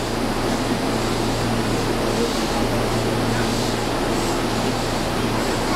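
Keihan 3000 series electric train standing at an underground platform, giving off a steady hum and rumble, with a low hum that cuts out near the end.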